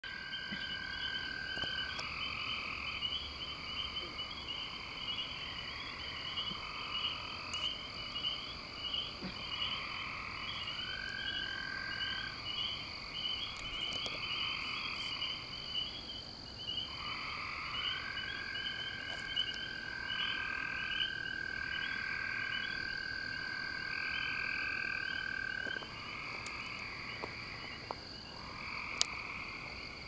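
A night chorus of several kinds of frogs calling at once. A fast chirping series runs throughout, over repeated overlapping calls about a second long and a steady high trill. A long unbroken call holds from about halfway in until a few seconds before the end.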